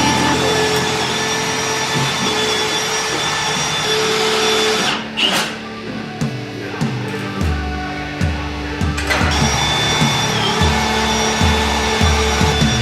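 Background pop music with sustained synth tones and a dense buzzing texture, a sweeping whoosh about five seconds in, then a repeating bass beat.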